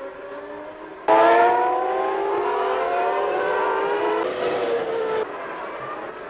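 Formula One car engines at a race track, in short edited cuts. About a second in, a loud high engine note climbs slowly in pitch for some three seconds, then a falling note follows for about a second, with quieter engine sound before and after.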